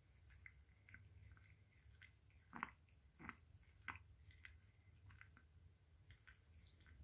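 Pomeranian licking a person's hand: faint, wet tongue clicks in an irregular string, a few louder ones around the middle.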